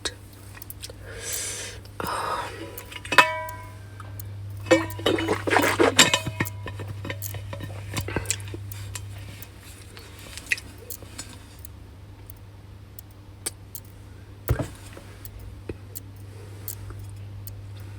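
Clinks and knocks of an eating utensil against a dish or container, a few ringing briefly, busiest in the first six seconds, over a steady low hum.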